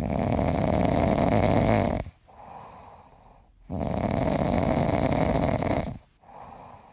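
Yellow Labrador snoring in deep sleep: two long loud snores of about two seconds each, with softer breaths in between.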